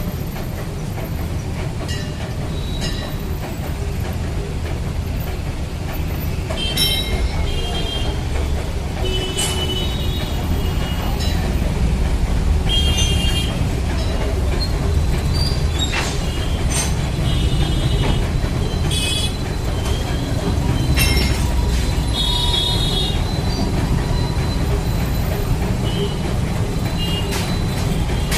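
Metal-cutting band saw running, a steady low machine rumble with short high squeals and sharp clicks coming and going over it.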